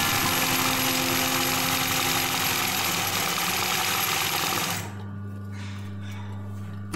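Sewing machine running steadily at speed, stitching free-motion embroidery through fabric in a hoop, then stopping about five seconds in. Background music plays underneath.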